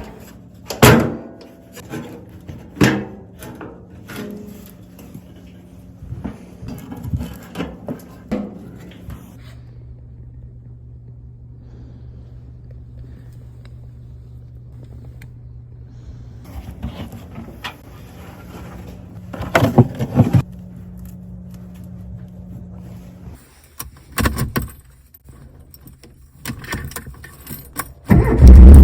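Scattered knocks and clicks over a faint low steady hum, then near the end the repaired Rover Mini's engine starts and runs loudly.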